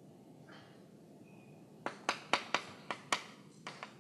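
Chalk striking a chalkboard while writing: sharp, irregular taps, two to four a second, starting about two seconds in after a quiet start.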